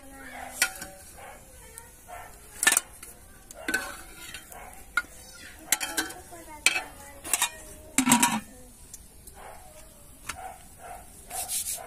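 Metal ladle clinking and scraping against an aluminium cooking pot and steel bowls as curry is served, a string of sharp separate clinks with a louder clatter about eight seconds in.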